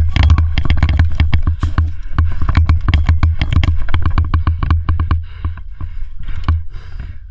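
A fast, uneven run of sharp clicks and knocks over a steady low rumble, thinning out a little after about five seconds.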